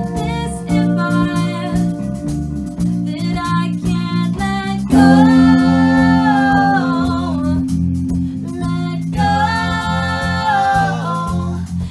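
Live indie rock band playing at lower than usual volume: a woman singing over electric guitar and bass guitar. About five seconds in the song gets louder, and she holds long sung notes twice.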